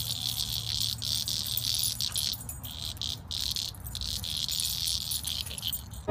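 Dense chorus of insects, a continuous shrill high-pitched hiss with brief dips, over a low steady rumble.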